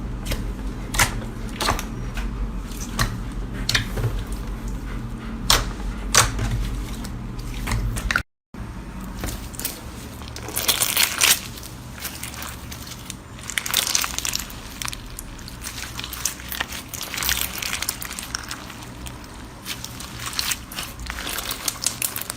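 Slime being squeezed and worked by hand, giving many sharp crackles and pops. It breaks off for a moment about eight seconds in, then comes back as denser bursts of crackling.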